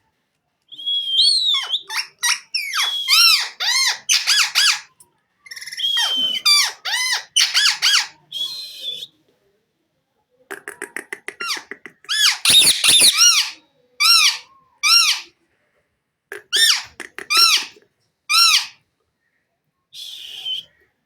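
Indian ringneck parakeet calling in a run of short, high-pitched squawks and chattering phrases, with a pause of about a second and a half about nine seconds in.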